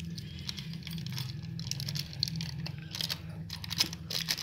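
Crinkling of a foil Maggi masala sachet as the spice powder is squeezed and shaken out of it into the pan: many short irregular crackles over a steady low hum.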